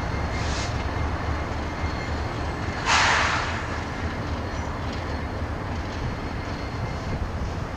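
Double-stack container freight train rolling past: a steady low rumble of wheels on rail, with a brief loud hiss about three seconds in.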